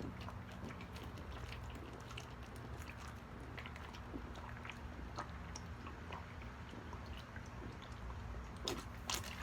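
A person chugging soda from a bottle: faint, irregular gulping and swallowing clicks, with two louder, sharper sounds near the end.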